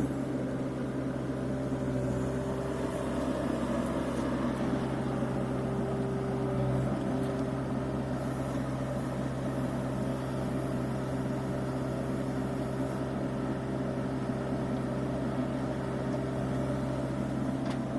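Bobcat E85 compact excavator's diesel engine running steadily as the machine works.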